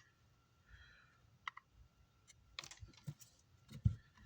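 Scattered small clicks and taps of tools working on an amplifier circuit board while a power-supply capacitor is desoldered, with a short faint hiss about a second in and a low knock near the end.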